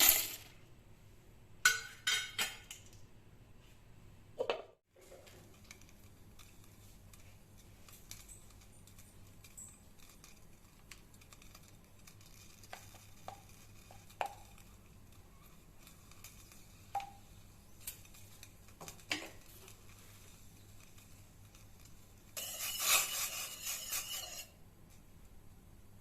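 Kitchen utensils and vessels clinking and knocking: a few sharp knocks at the start and over the next few seconds, scattered light taps in the middle, and a rougher clatter of about two seconds near the end.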